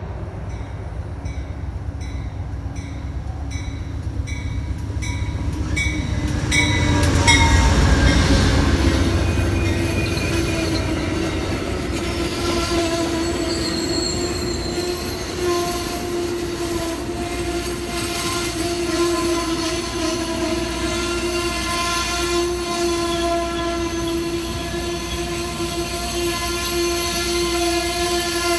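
Amtrak passenger train arriving at a station. A bell rings about twice a second as the locomotive approaches, and the locomotive is loudest as it passes about seven to eight seconds in. The passenger cars then roll by with a steady high squeal from the wheels as the train slows to stop.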